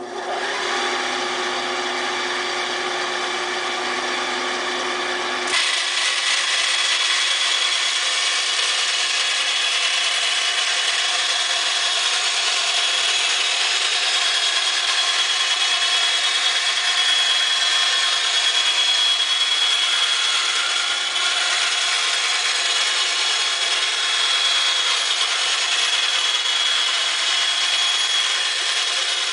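Skil benchtop bandsaw running and cutting through a sheet of Lexan polycarbonate, a steady machine noise. About five seconds in the sound steps up a little and a steady high whine sets in, which holds to the end.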